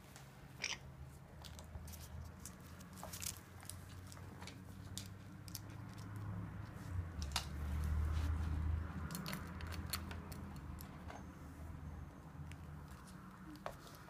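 Parrots' beaks clicking and crunching on plastic Lego bricks: scattered sharp clicks over a low rumble that swells for a couple of seconds midway.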